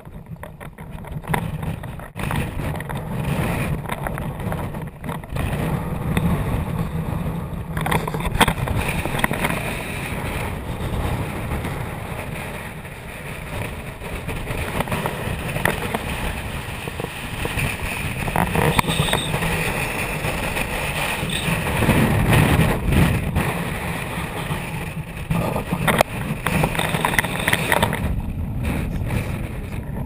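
Gale-force wind gusts buffeting the camera's microphone: a loud, low, noisy rush that swells and dips with each gust.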